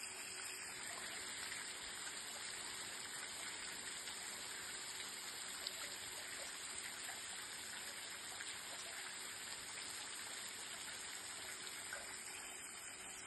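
Fountain spraying fine jets of water that fall onto a statue and into its basin: a steady splashing of droplets.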